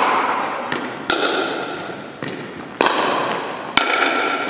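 Pickleball rally: paddles striking a hollow plastic pickleball, several sharp pops about a second apart with fainter taps between, each ringing briefly and echoing off the gym's hard walls and wooden floor.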